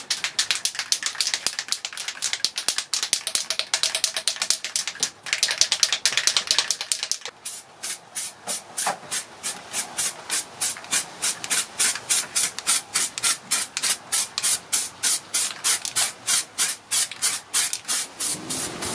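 Aerosol spray-paint can being shaken and sprayed over car grille parts. From a little past the middle it settles into an even rhythm of about four strokes a second.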